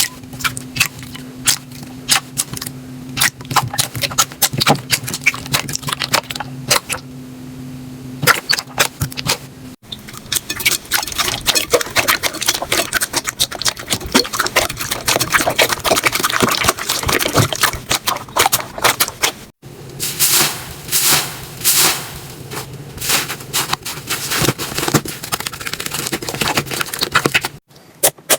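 Hands squeezing and poking slime, making a dense run of sharp crackling pops and clicks. The sound breaks off and changes character abruptly twice, about ten and twenty seconds in, and a low steady hum runs under the first third.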